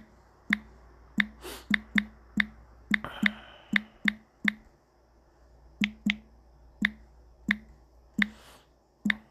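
Typing on a smartphone's touchscreen keyboard. Each key tap is a sharp click with a brief low buzz under it. About a dozen quick taps come in the first four and a half seconds, then after a short pause a handful of slower ones.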